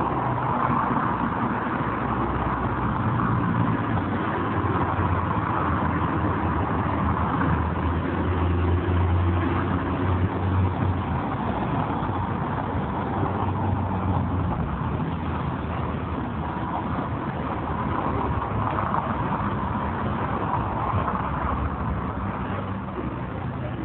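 Motor vehicle engines running over a steady rushing noise, with a low engine note strongest about eight to eleven seconds in.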